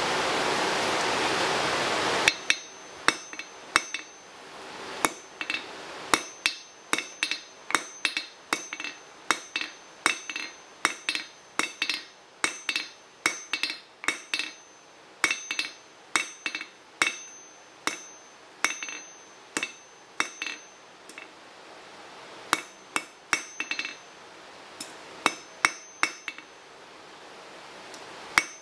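A steady rushing noise for about two seconds, then a hammer forging a red-hot iron rod on a Ridgid steel anvil: a long run of sharp ringing blows, roughly two a second, in bursts with brief pauses.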